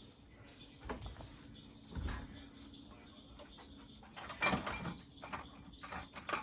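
Hand tools and metal parts being picked up and set down: scattered short clinks and knocks, with a louder cluster about four and a half seconds in and another near the end.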